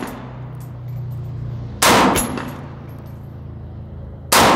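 Two rifle shots about two and a half seconds apart from a PSA AR-47 with a 10.5-inch barrel, chambered in 7.62x39, firing at steel targets.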